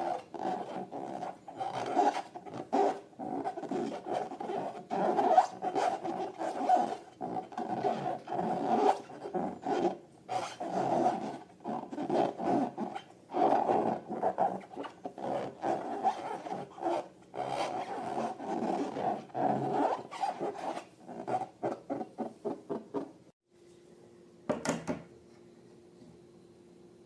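Rubber balloon squeaking and squealing in a long run of short rasping strokes, which stops about 23 seconds in and is followed by a single click.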